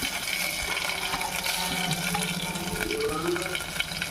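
Chopped onions and tomatoes sizzling in hot oil in a cooking pot: a steady hiss with small crackles as they fry down.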